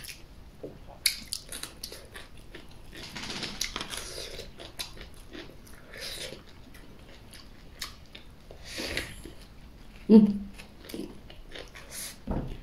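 Close chewing and biting of a pancake roll filled with raw green onion stalks and fried bean sauce, with short crisp crunches and mouth sounds. A brief hummed 'mm' about ten seconds in.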